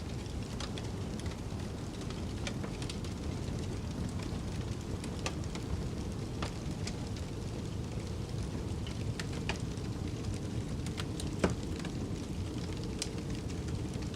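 Wood fire crackling in a fireplace: scattered sharp pops over a steady low rumble, with one louder pop about eleven and a half seconds in.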